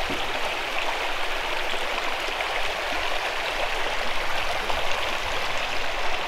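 Small creek running over a shallow rocky riffle: a steady wash of moving water.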